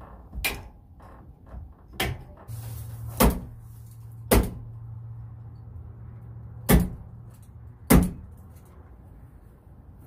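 Hammer blows on the wooden door frame of a shed: six sharp knocks at uneven spacing, the last two the loudest, with a low steady hum underneath through the middle.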